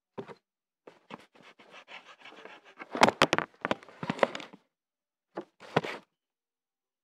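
Handling noise from a hand rubbing and tapping right over a phone's microphone: a run of scrapes and rustles with several sharp knocks, loudest about three to four seconds in, then two short scuffs near the end.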